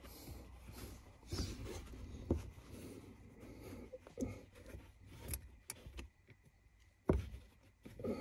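Faint rustling and handling noises with a few light knocks and clicks as a pedal spacer is fitted by hand onto a car's gas pedal. The sharpest knock comes about seven seconds in.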